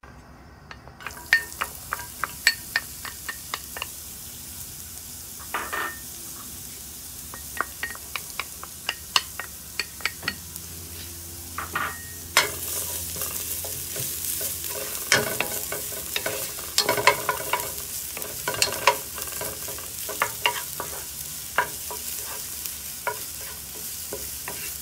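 Minced ginger and garlic sizzling in hot sesame oil in a non-stick pan, frying until golden. The sizzle gets louder about halfway through, and a spatula taps and scrapes the pan again and again.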